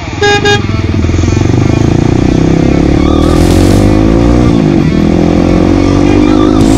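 Kawasaki D-Tracker's single-cylinder engine pulling the bike up to speed. Its pitch rises, drops briefly at a gear change about four and a half seconds in, then rises again. Two short beeps at the very start.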